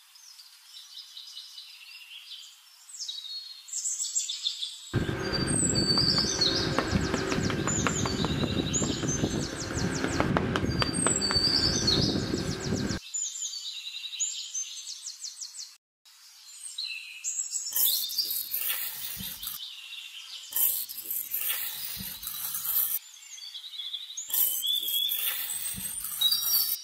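Birds chirping throughout. A louder, rough, buzzy sound runs for about eight seconds in the middle. In the second half, a small metal trowel scrapes through sand three times as lines are drawn.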